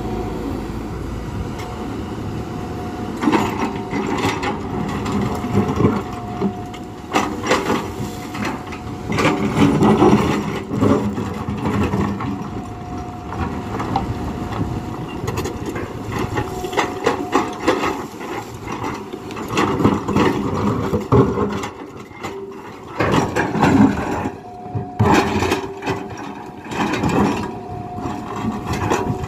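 Tata Hitachi Zaxis 120H hydraulic excavator running with a steady hum, with repeated irregular scraping, clanking and crunching as its steel bucket digs into rocky soil.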